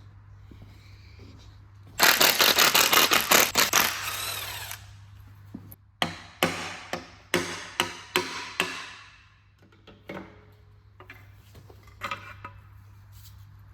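Power drill drilling out snapped aluminium gearbox bolts from the engine block: one run of about three seconds that winds down, then six short trigger bursts in quick succession and a few lighter ones near the end.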